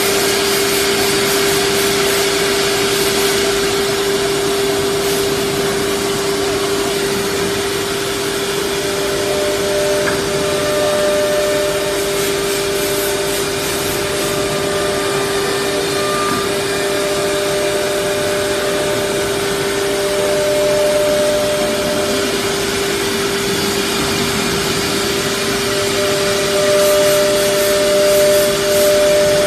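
Holztek HT-R4F four-head CNC nesting router running in a test cut: a steady rush of machine noise with a constant hum through it, and a second, higher tone that comes and goes from about a third of the way in.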